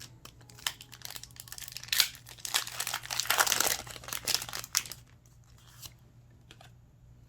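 Foil wrapper of a Pokémon booster pack being torn open: a run of crinkling and ripping, loudest in the middle, that stops about five seconds in.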